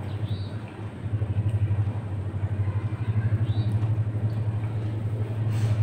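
A steady low machine hum with a fast, even throb, with only faint small sounds above it.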